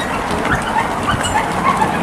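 A small dog yapping and whining in short, high calls several times a second, over the patter of runners' footsteps on the road.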